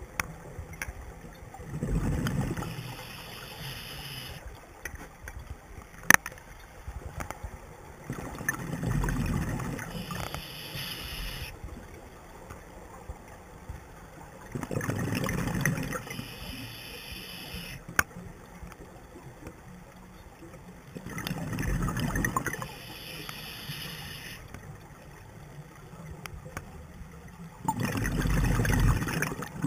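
Scuba diver breathing through a regulator underwater: each exhalation is a gurgling burst of bubbles lasting a second or two, five of them about every six to seven seconds. Two sharp clicks sound between them.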